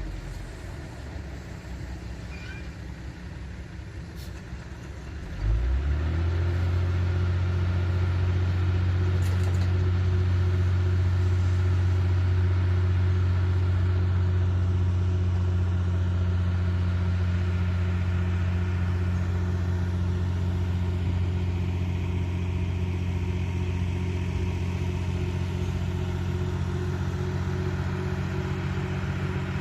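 Hydraulic excavator's diesel engine running, revving up quickly about five seconds in, then holding a steady, louder drone.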